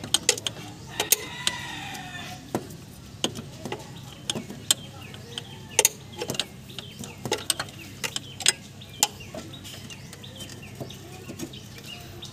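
Irregular metallic clicks and clinks of a socket wrench and extension working a nut on a car's A/C compressor belt tensioner, being loosened. A short falling animal call sounds about a second in.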